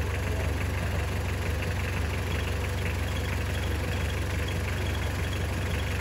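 An engine idling steadily with a low, even drone.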